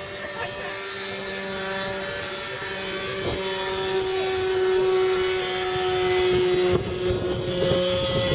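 Small propeller motor of a radio-controlled paper airplane whining in flight, a steady buzzing tone that swells in the middle and shifts slightly in pitch about two-thirds of the way through.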